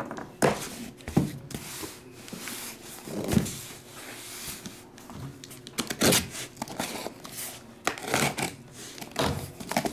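A sealed cardboard case packed with boxes being lifted, turned over and set back down on a table: scraping and rustling of the cardboard with several dull thumps.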